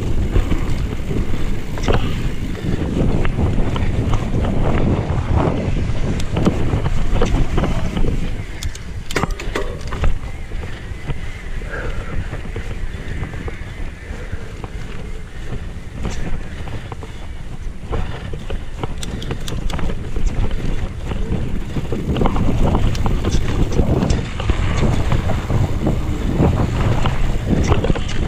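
Wind buffeting the microphone of a camera riding on a 2018 Specialized Kenevo electric mountain bike, over a steady rumble of tyres on a dirt and gravel trail. Frequent short knocks and rattles come from the bike jolting over bumps.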